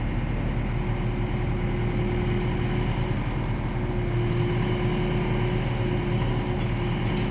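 Diesel engine of a railway excavator running steadily, with a thin steady tone over the engine drone from about a second in.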